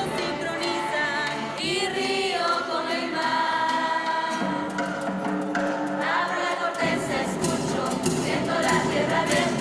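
Music with several voices singing together as a group. Fuller, lower parts come in about seven seconds in.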